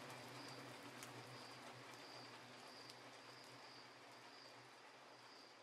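Near silence: the faint tail of an electronic music track fading out, a low hum under a soft high tone pulsing about twice a second, slowly getting quieter.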